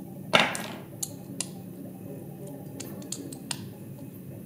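Hand-tightening small screws in drone frame hardware: one sharp clack about a third of a second in, then a few light clicks and ticks of the tool and metal parts.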